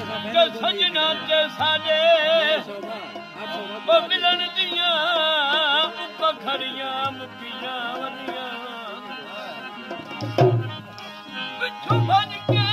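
Background music: a wavering, ornamented melody over hand-drum beats, with heavier drum strokes near the end.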